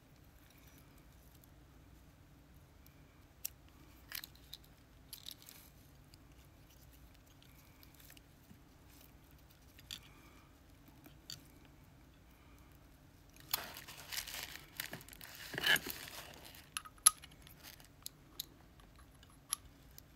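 Scattered small metal clicks and light rattling as a pin-tumbler lock and its keys are handled during disassembly, with a busier stretch of scraping and clicking about two-thirds of the way through and one sharp click near the end of it.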